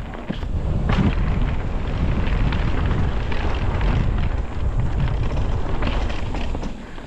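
Wind buffeting the microphone and mountain bike tyres rumbling over a dirt trail at speed, with rattling knocks from the bike. It gets louder about a second in and eases off near the end.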